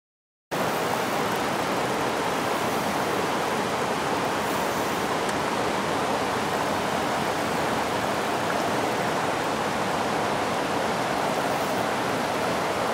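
River water rushing over a low weir, a steady even hiss that starts abruptly about half a second in.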